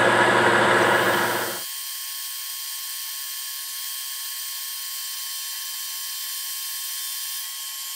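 Metal lathe taking a boring pass with a heavy boring bar, cutting smoothly. About a second and a half in, the sound drops abruptly to a quieter, thinner steady whine with a faint constant tone.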